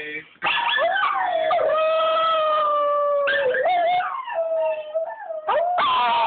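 Small Chihuahua-mix dog howling: several long, high, held howls in a row with short breaks between them, each bending in pitch at its start and end.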